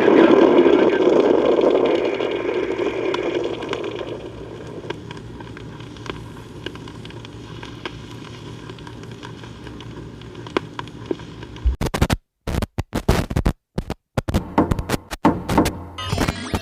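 Rocket launch roar from a record, fading away over the first few seconds, then the record's surface noise: a steady hiss with scattered clicks and crackle. Near the end the sound cuts out and back in several times.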